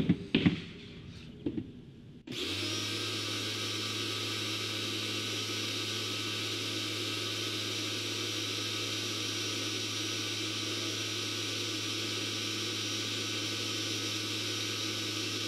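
Rock&Rocker 1800-watt electric pressure washer starting about two seconds in and then running steadily, a low motor and pump hum under the hiss of water rushing from the open wand, with no nozzle fitted, into a lidded bucket. A few light handling clicks come before it starts.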